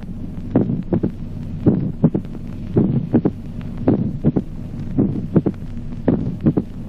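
Auscultated heart sounds in sinus rhythm with a mitral opening snap at a long interval: in each beat, a little under one a second, the first and second heart sounds are followed shortly by an extra sharp click. The opening snap is the classic sign of mitral stenosis. A steady low hum runs underneath.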